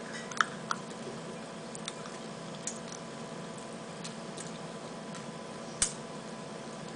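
A few scattered sharp clicks and ticks, the loudest near the end, from a clear plastic tub of hard candy-shelled Jordan almonds being handled and the candies being eaten. A faint steady electrical hum runs underneath.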